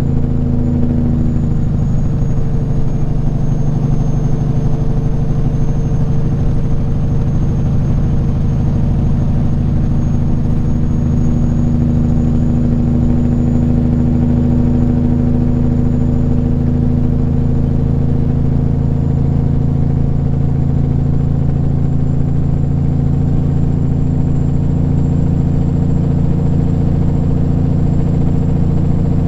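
Peterbilt 379 semi-truck's diesel engine running steadily at constant speed on the highway, heard from inside the cab, with a faint high whine above it.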